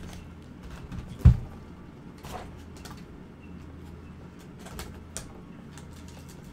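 A cardboard box of baseball trading cards set down on a table with one low thump about a second in, followed by a few light clicks and rustles of handling, over a low steady hum.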